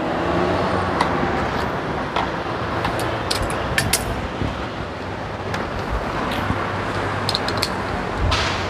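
Steady street traffic noise with a few light metal clicks as locking pliers and a socket extension are worked on a long bolt in a plastic intake manifold.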